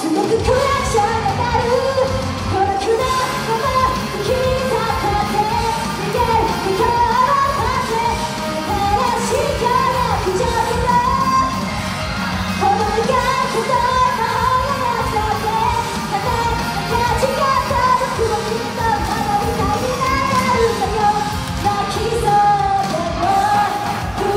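Idol pop song played loud over a PA: a woman singing over a backing track with a steady beat, the bass and beat coming in right at the start.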